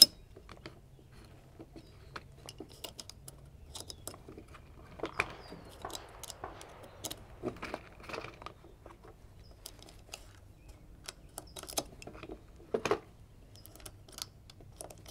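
Small, quiet clicks of .22LR rimfire cartridges being pressed one by one into a Vudoo V-22 rifle magazine, with a rustle of the plastic Eley ammo box and tray being handled about five to seven seconds in.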